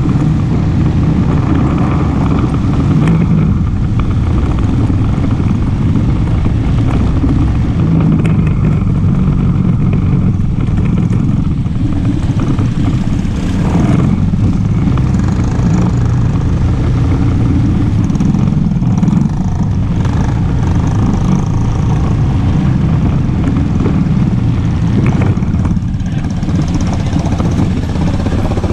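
ATV engine running steadily under way, with a constant low drone and rattle and no pauses.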